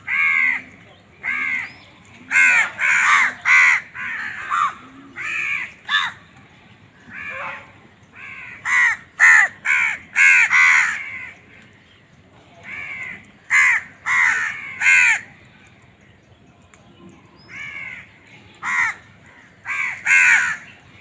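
Crows cawing over and over: harsh, hoarse caws that come in quick runs of two to four, with short pauses between the runs.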